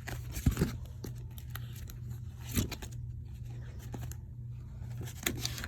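Pages of a photo album being handled and turned: paper and plastic rustling, with a few short knocks about half a second in, a couple of seconds later and near the end, over a steady low hum.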